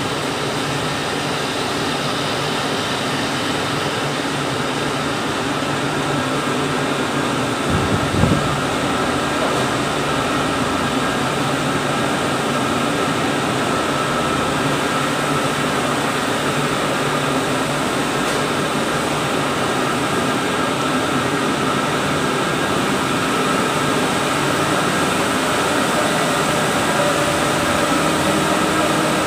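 Steady drone and hum of running water-tank moulding machinery, with several steady tones held over it. A brief low thud about eight seconds in.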